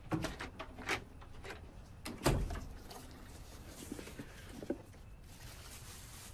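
A few light clicks, then a wooden door shutting with a thud about two seconds in. After that comes the quiet handling of a cardboard gift box, ending in a soft rustle of tissue paper near the end.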